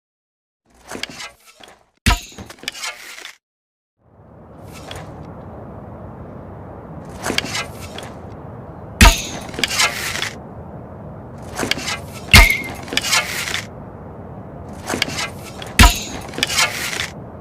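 Compound bow shot four times, about every three and a half seconds: each shot is a few light clicks, then one sharp snap followed by about a second of rattling. A steady hiss runs underneath from about four seconds in.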